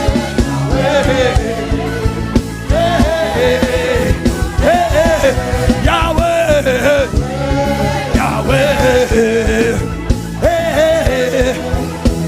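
Worship music: a voice sings long, sliding held notes over a band with drums and a steady low accompaniment.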